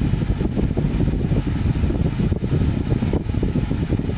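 A loud, steady low rumbling noise that flutters rapidly, with a fainter hiss above it.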